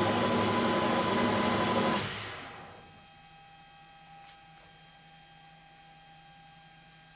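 1972 Weiler Matador SV lathe running with its chuck at 2400 rpm, a steady machine noise with a high whine in it. About two seconds in it is switched off with a click and winds down to a faint hum within about a second.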